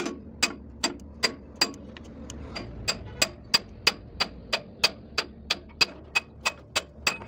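Steel rod knocking against a truck's steering knuckle, metal on metal, in a steady train of sharp clanks about three a second, each ringing briefly.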